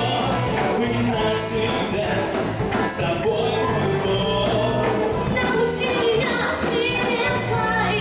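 Live band playing a rock-style Christian worship song, with a steady drum beat, bass, and a melodic line bending up and down above it.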